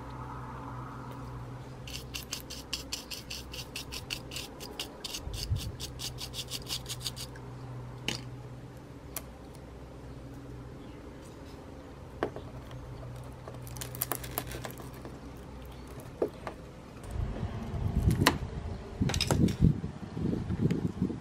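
Handling noises from a small plastic TV speaker and its wires being worked out of the set's mount: a run of quick, even clicks lasting about five seconds from about two seconds in, scattered sharp ticks, then louder rubbing and knocking of plastic near the end, over a low steady hum.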